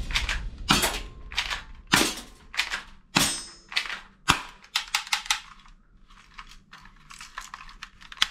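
Hard plastic toy guns clacking and clicking as gloved hands rummage through a box of them and handle a toy pistol. The sharp, irregular knocks are loudest in the first four seconds or so, then turn lighter and quicker.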